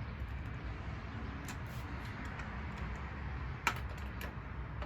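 Scattered light metallic clicks and taps of channel-lock pliers working a cotter pin's ends against the axle, with one sharper click a little past the middle, over a low steady rumble.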